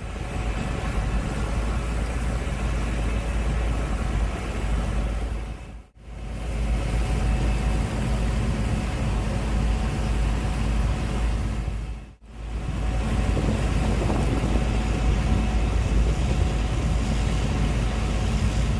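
Gleaner S98 combine harvester running steadily under load, its engine and threshing machinery giving a steady drone with a deep rumble. The sound drops out briefly twice.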